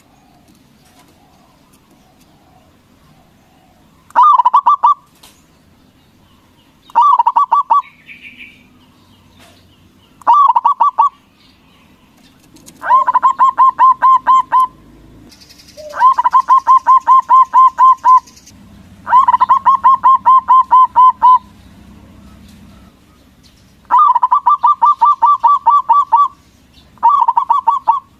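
A zebra dove (perkutut) singing its rapid staccato cooing song, about eight runs of quick repeated notes. Some runs are short and some carry on for about two seconds.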